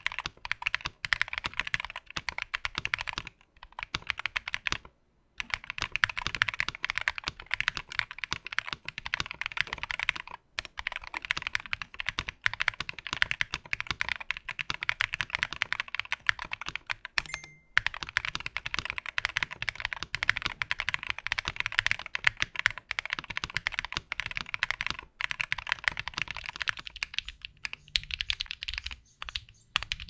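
Fast, continuous typing on an FNK Origin 65A keyboard with Eclair Orange linear switches, plate foam and a tape mod. There are brief pauses a few times.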